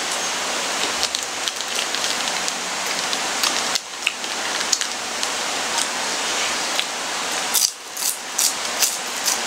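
Steady rain falling, a constant hiss. Near the end come a few short, crisp crunches as a pandan wafer stick is bitten and chewed.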